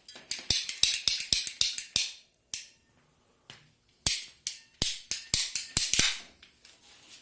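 Two bursts of rapid ratchet-like mechanical clicking, about six clicks a second, each lasting about two seconds, with a pause of about two seconds between them.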